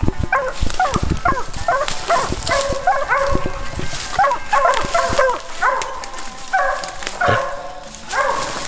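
Coon-hunting dog barking over and over, two to three barks a second, with a few longer drawn-out calls in the second half. Footsteps crunch through the undergrowth underneath.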